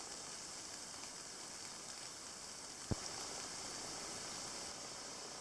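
Quiet forest ambience: a steady, faint high-pitched hiss, with a single short knock about three seconds in.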